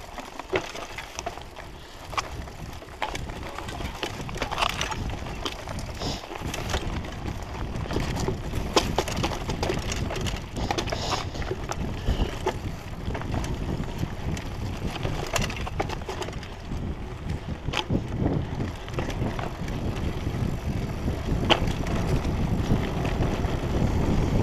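Mountain bike riding down a dirt singletrack: tyres running over dirt and stones, with frequent rattles and knocks from the bike over bumps and a steady rush that grows louder toward the end.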